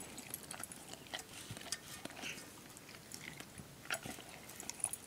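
A dog eating a pumpkin muffin from a bowl: quiet, irregular biting and chewing clicks and smacks.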